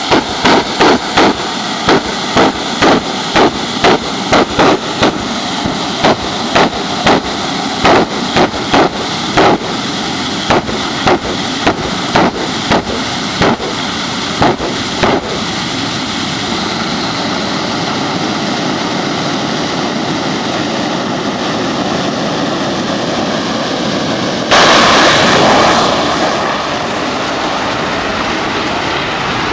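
A jet funny car's jet engine runs steadily at the start line while its afterburner fires in sharp pops, about two a second, for the first fifteen seconds or so. Near the end comes a sudden, much louder afterburner blast as the car launches, fading over a couple of seconds as it runs away down the track.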